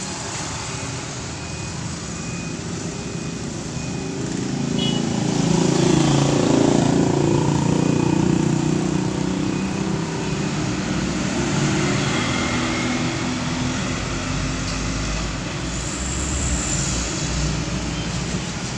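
Street traffic at a busy junction: vehicle engines running and tyres on the road, swelling about five seconds in as the traffic moves off. From about two-thirds of the way through, the deep rumble of lorry engines passing close by comes in.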